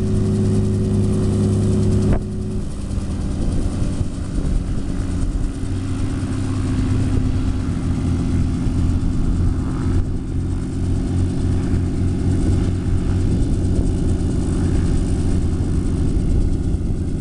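Small piston-engine helicopter running on the ground with its main rotor turning: a steady engine drone with a fast rotor beat. The tone shifts about two seconds in.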